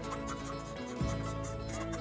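Background music with held notes and a deep bass hit about a second in.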